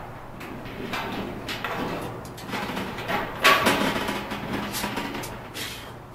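Cloth rubbing polish over a barbecue grill's stainless steel lid in repeated back-and-forth swishing strokes, with a sharper knock about halfway through.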